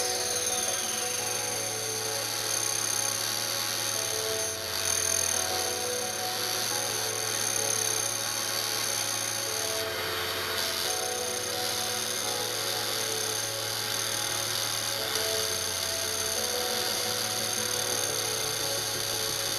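Background music with slowly changing notes, over a steady high-pitched machine whine from the laser engraver marking the receiver.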